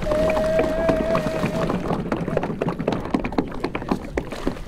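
Water splashing and pouring off a fishing net as it is hauled up out of the sea against the side of a small boat, with many quick splashes and drips. A steady held tone sounds over it for about the first second and a half.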